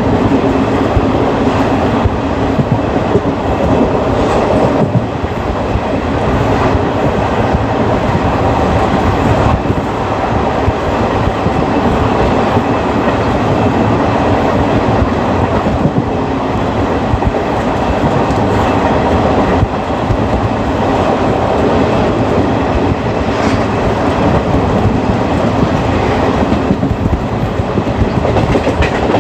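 Indian Railways ICF passenger coach running on the track, heard on board: a steady, loud rumble and rattle of wheels on rails with clickety-clack.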